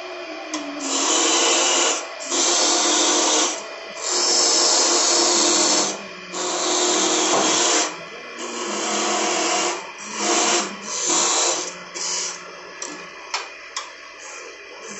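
A hand chisel cutting into a wooden spindle spinning on a wood lathe, scraping in repeated passes of one to two seconds each over a steady hum. The passes become shorter and choppier near the end.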